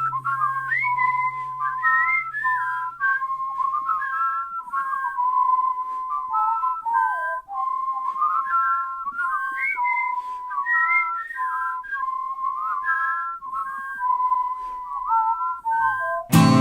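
Background music: a solo whistled melody of quick notes with little slides, over a fading low chord; the full band comes back in right at the end.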